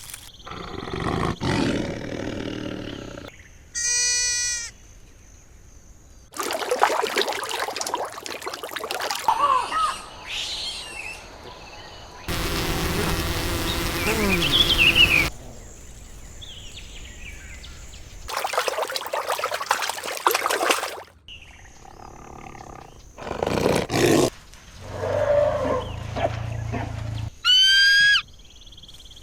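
A series of short wild-animal call recordings cut one after another, mostly roars of big cats. The cuts between clips are abrupt. Shorter high-pitched calls occur about four seconds in, and a few rising high calls come near the end.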